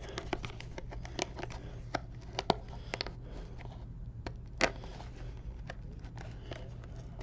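Scattered light clicks and taps of a trading-card box and its packs being handled, over a steady low hum.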